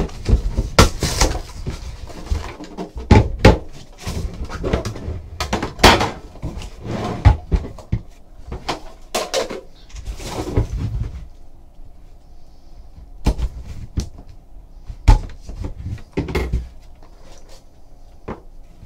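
Cardboard boxes of a Panini Immaculate Baseball hobby box being opened and handled on a tabletop close to the microphone: repeated knocks, scrapes and rustles, busy for the first half and then only a few separate taps.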